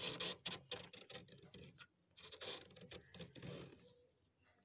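A metal spoon digging into and scooping up a freezer's thick frost build-up, the packed ice crystals crunching: a quick run of crisp crackles, then two longer scrapes, dying away near the end.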